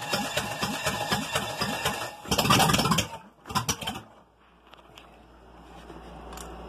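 Chevrolet 305 small-block V8 cranked over on its starter without catching, a fast even chugging that swells louder partway through and stops after about four seconds. It isn't firing because no fuel is getting to it.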